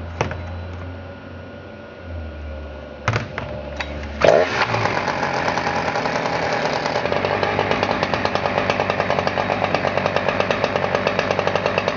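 Husqvarna 359 59 cc two-stroke chainsaw idling low, with a few sharp clicks about three seconds in. Just after four seconds it is revved up suddenly and then held running fast and steady at high revs.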